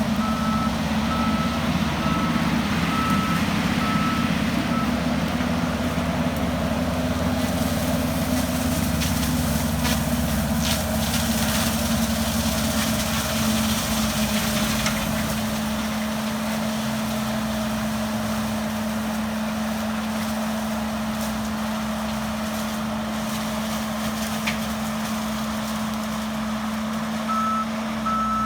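John Deere 333G skid steer's diesel engine running steadily under load while driving a forestry disc mulcher. Its backup alarm beeps steadily for the first few seconds and starts again near the end.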